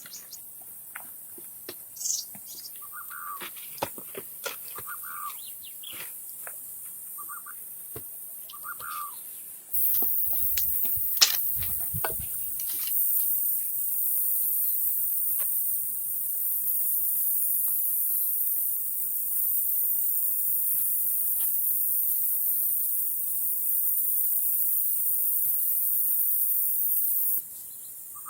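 Birds chirping in short calls, one every second or two. About ten seconds in, a steady high-pitched hiss comes in and holds, with a few knocks at its start.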